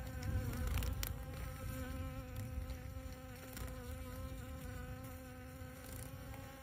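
Insect wings buzzing: honeybees give a steady pitched hum, and a hummingbird moth's wingbeats add an uneven low whir beneath it.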